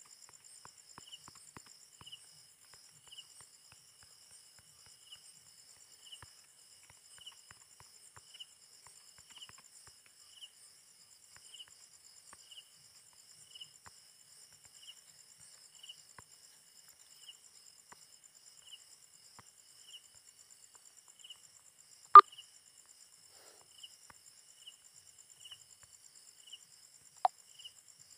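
Faint insects, likely crickets, chirping steadily: a high trill with a short chirp about once a second. Near the end come two sharp clicks, the first much louder.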